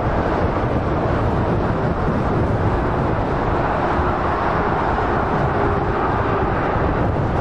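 Steady roar of fast motorway traffic, mostly tyre and engine noise from passing lorries and cars.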